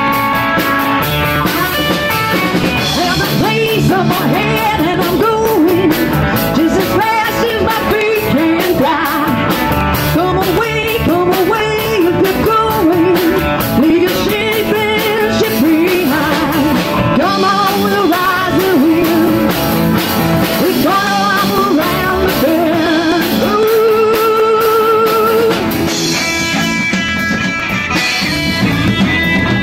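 Live blues-rock band playing loud: a lead electric guitar plays bending, wavering melody lines over bass guitar and drum kit, ending on a long note held with vibrato near the end.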